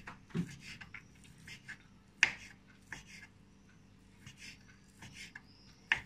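Kitchen knife chopping boiled pork on a wooden cutting board: irregular light taps, with two sharper knocks, one a little over two seconds in and one near the end.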